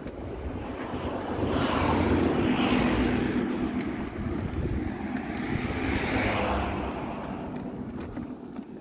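Road traffic passing close by on the adjacent road: a broad engine-and-tyre noise swells over about two seconds, holds, then fades away.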